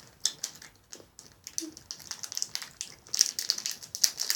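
Candy wrapper crinkling and crackling in the fingers as a sweet is unwrapped: a fast, irregular run of small crackles, busier in the second half.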